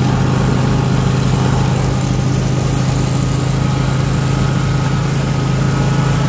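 John Deere X310 garden tractor's engine running steadily under load with its 44-inch snowthrower engaged, the impeller throwing powdery snow out the chute. A steady engine drone sits under an even hiss.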